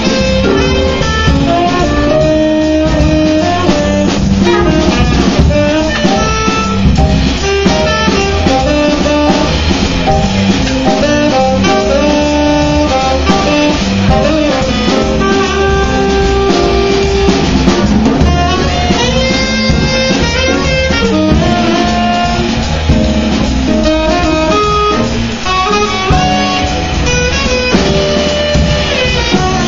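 Live jazz: a tenor saxophone playing a melodic line over plucked double bass and a drum kit with cymbals.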